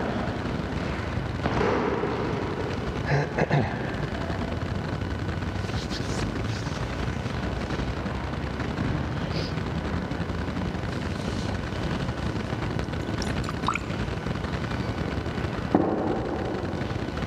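Steady low rumbling background noise, with a few knocks and a light clink as objects are handled on an altar: a handful of knocks around three seconds in, a short ringing clink later, and a sharper knock near the end as a book is touched.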